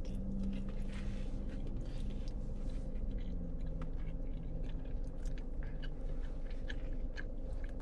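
A person chewing a mouthful of food close to the microphone, with many small wet mouth clicks, over a low steady hum.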